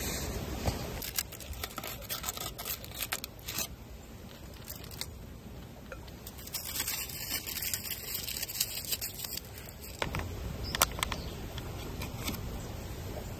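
Camp-cooking handling sounds: a run of scrapes, light taps and crinkling, busiest in the first few seconds and again near the end, with a brief hiss in the middle.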